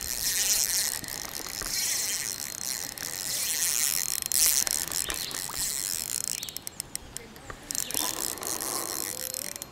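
Spinning reel being cranked to bring in a hooked catfish: a high-pitched whirring of the reel's gears in spells, with a quick run of clicks about two-thirds of the way through.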